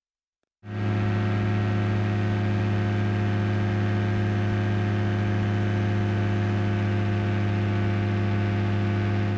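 Rebuilt Rotax aircraft engine and propeller running at steady cruise power in flight: a constant low drone with an even pitch. It fades in after a brief silence, about half a second in.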